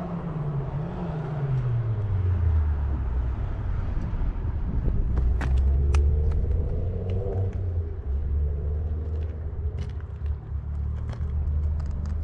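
A low engine rumble whose pitch falls over the first two seconds and then holds steady, with a few faint clicks.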